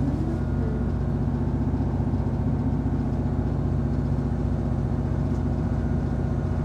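Diesel passenger train's engine running at a steady low drone, heard from on board the train.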